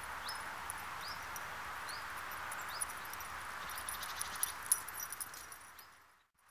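Outdoor ambience: a steady hiss with a bird repeating one short rising chirp about once a second, and a patter of light high clicks from about two and a half to five seconds in. The sound fades out near the end.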